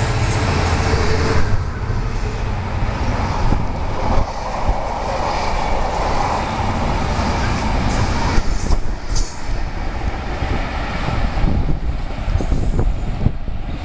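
Diesel-hauled freight train passing at close range: a continuous heavy rail rumble with the wagons' wheels clattering over the track, and a low diesel locomotive engine hum in the first second or so.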